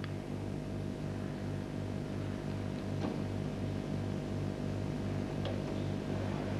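Steady low machine hum that pulses a few times a second, with a few faint clicks.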